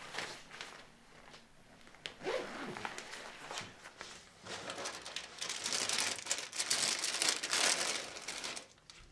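Crinkly plastic wrapper being handled and torn open by hand, like a snack packet being opened, rustling in short crackles and loudest in the second half.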